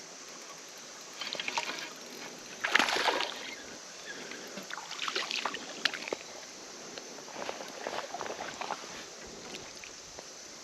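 Water splashing in several irregular bursts, the loudest about three seconds in: a hooked smallmouth bass thrashing at the surface as it is reeled in.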